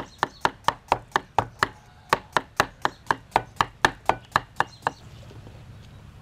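Cleaver slicing a cucumber on a round wooden chopping board: quick, even knocks of the blade against the wood, about four a second, stopping about five seconds in.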